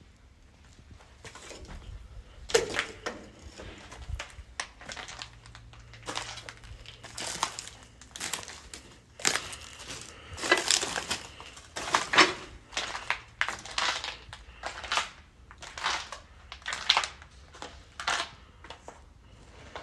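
Footsteps crunching over rubble and debris on a derelict building's floor, an uneven run of crunches about one to two a second, starting about two seconds in.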